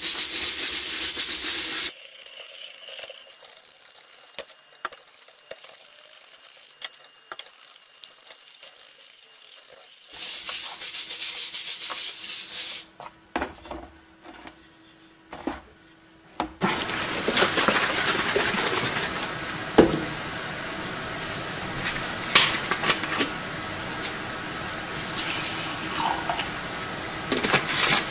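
Sponge and stiff-bristled brush scrubbing a wet, rusty steel helmet shell. The scrubbing comes in several stretches of steady rubbing, with quieter gaps and a few light knocks between.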